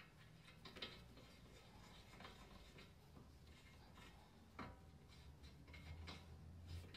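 Near silence, with a few faint clicks and scrapes as a steel conversion wheel stud is threaded by hand into the wheel hub. A low hum grows louder near the end.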